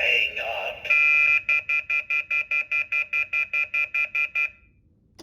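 Talking haunted rotary phone toy sounding the telephone off-hook warning tone (the 'howler') after its 'not in service' recording. It is a loud, high, shrill chord that holds briefly, then pulses rapidly, about five beeps a second, and stops about a second before the end.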